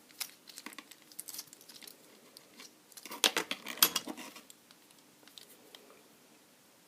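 Lock pick and tension wrench working in the keyway of an Abus Brady 32.5mm lockout padlock: scattered small metallic clicks and scrapes as the pins are set, with a louder cluster of rattling clicks about three to four seconds in, then dying away about six seconds in.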